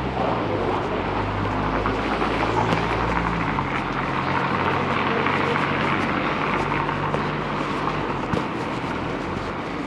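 City street traffic: vehicle engines running and tyre noise swelling through the middle as a vehicle passes, then easing off.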